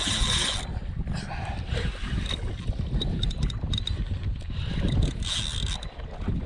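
Spinning reel being cranked to bring in a hooked fish against the bent rod, over a steady rumble of wind on the microphone, with short bursts of hiss at the start and about five seconds in.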